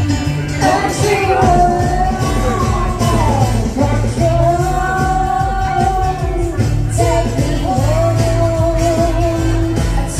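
A pop song with a sung lead vocal holding long, gliding notes over a steady bass line and band accompaniment.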